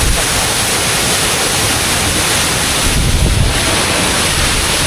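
Waterfall running: a loud, steady rush of falling water, with wind buffeting the microphone and a heavier low rumble about three seconds in.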